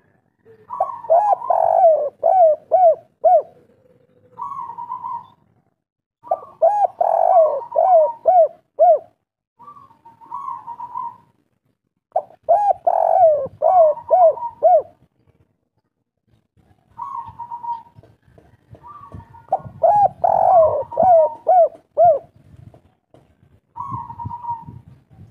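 Spotted dove singing its cooing song of the 'kuk 3' type: four long phrases of quick, falling coos a few seconds apart, with shorter single coos between them.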